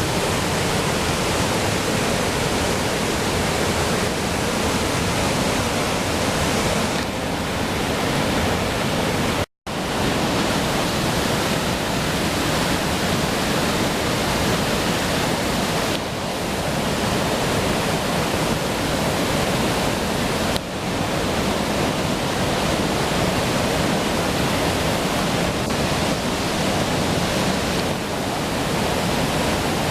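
Twin waterfalls pouring: a loud, steady rush of falling water. It cuts out for an instant about ten seconds in.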